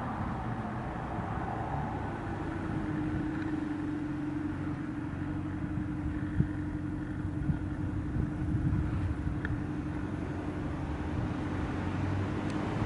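Steady rumble of road traffic heard inside a pedestrian underpass, with a constant hum and a few light knocks, the sharpest about halfway through.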